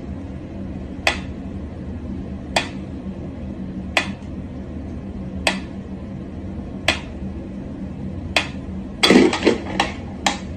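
Mechanical pendulum metronome ticking slowly and evenly, one sharp tick about every second and a half. About nine seconds in comes a brief louder burst of rustling and knocks, followed by a couple of quicker clicks.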